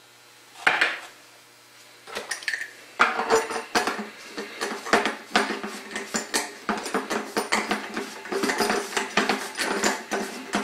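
Hard plastic clattering as the PVC drain-pipe hog tube and its fittings are handled: a single knock, then from about three seconds in a continuous run of rapid, irregular clicks and rattles.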